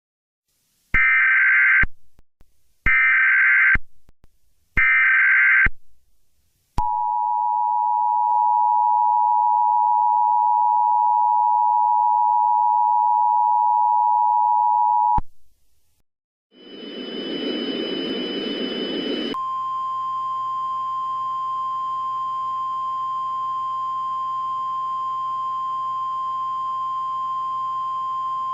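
Mock Emergency Alert System tones: three short screeching data bursts of the alert header, then the two-tone attention signal held steadily for about eight seconds before cutting off. After a short gap comes a burst of static, then a single steady tone over a low hum.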